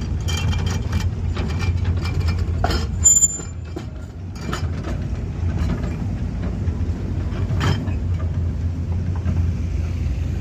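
Rock River Cannonball train backing slowly over its track: a steady low rumble with scattered clanks of the wheels and cars, and a brief high wheel squeal about three seconds in.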